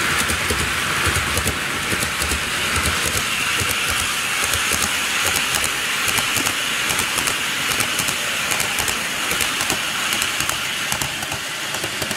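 N-gauge model train running past on plastic viaduct track: a steady rolling hiss of wheels and motor with fine rapid clicking, easing a little near the end as it moves away.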